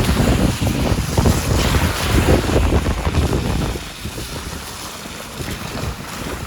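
Wind buffeting the microphone in gusts, a loud, uneven low rumble that eases about halfway through.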